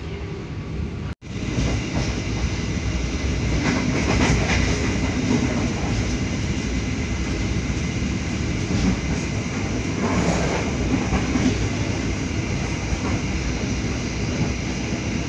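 Passenger train coach running at speed, heard from inside: a steady rumble and rush of steel wheels rolling on the rails. The sound breaks off for an instant about a second in, then carries on.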